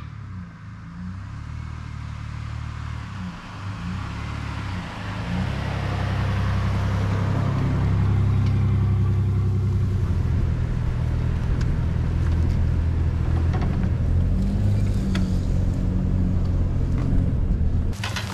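Nissan Frontier Pro-4X pickup's V6 engine running as the truck tows a loaded trailer through a grassy field, with a steady low hum that grows louder about five seconds in.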